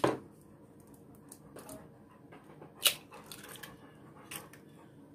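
Eggs being tapped and cracked against the rim of a plastic mixing bowl: a few sharp knocks, one at the start and the loudest about three seconds in, with soft shell crackles between.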